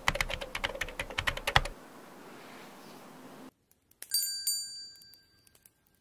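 A quick run of crisp, rapid clicking and crunching for about the first two seconds. After a brief silence, a bright bell-like chime rings out about four seconds in and fades away.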